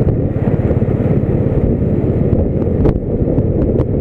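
Wind rushing over the microphone on top of the steady engine and road noise of a vehicle travelling on the highway, with a few sharp clicks.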